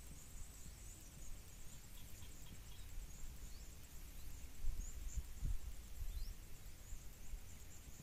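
Outdoor ambience: a low rumble on the microphone that swells about halfway through, with a faint, steady high-pitched insect trill and small high chirps above it.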